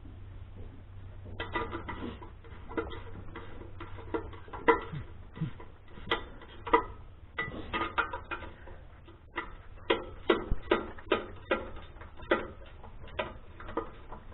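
Irregular metal clinks and ticks of hand tools and nuts on steel U-bolts as the clamps of a snowplow mount bracket are worked by hand. The clicks come thicker in the second half.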